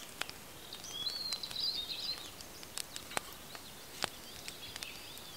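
Small songbird singing a short, high warbling phrase about a second in, with fainter chirps later, over forest ambience and a few scattered sharp crackles.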